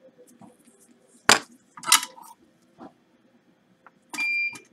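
A few sharp metallic clicks and clinks of small tools on a workbench, about one a second; near the end a louder clink rings on for about half a second.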